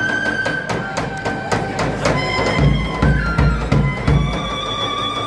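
Live Vlach folk dance music: a held melody line over drum beats, with sharp strikes in the first half and heavy low beats from about halfway on.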